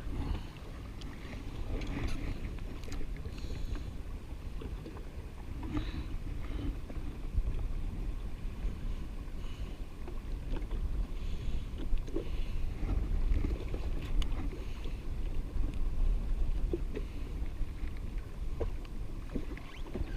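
Wind buffeting the microphone and water lapping against a drifting jet ski's hull, with scattered small knocks and clicks.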